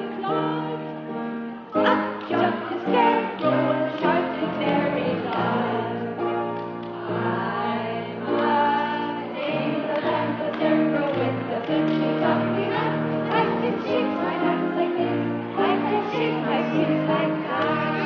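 A song with several voices singing together over an instrumental accompaniment of held bass notes.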